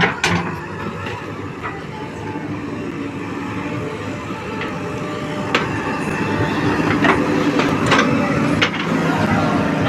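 Diesel engine of a JCB 3DX backhoe loader running at work, growing louder about halfway through, with a few sharp metal clanks.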